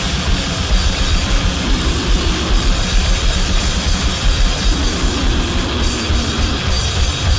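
Loud, dense noisegrind music: heavily distorted instruments over fast, relentless drumming, with no let-up.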